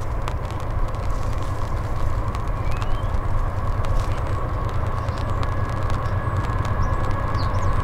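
Canadian Pacific diesel freight locomotives approaching at the head of a manifest train: a steady low engine rumble with a steady high tone over it.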